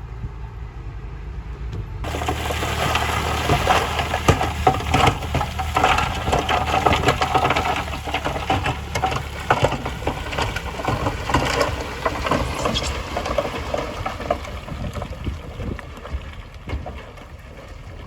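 Heavy construction machine's diesel engine running low. About two seconds in, dense crunching and clattering of gravel and stones begins as the machine moves the material.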